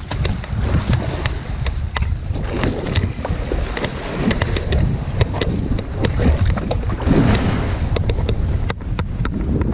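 Heavy wind buffeting the microphone over choppy sea, with waves splashing against a small boat's hull and scattered sharp clicks.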